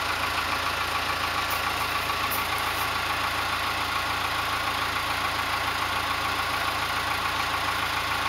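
Backhoe engine idling steadily, with no change in pitch or load.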